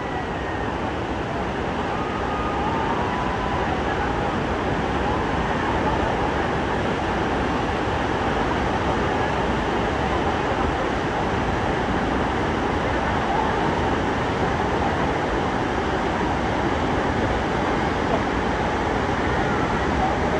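Steady, loud rush of a large waterfall, Niagara's Bridal Veil Falls, pouring down onto the rocks close by.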